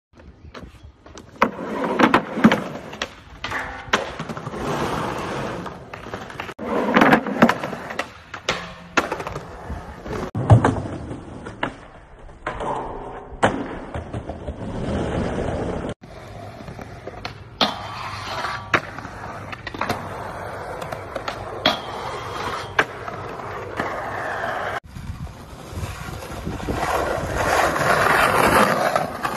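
Skateboard wheels rolling on concrete and asphalt, with repeated sharp pops and clacks of the board from tricks and landings. The sound cuts abruptly twice.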